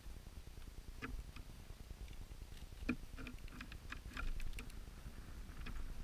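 A bird pecking at seed on a plastic feeder tray: irregular light taps and clicks, thickest in a run between about three and five seconds in.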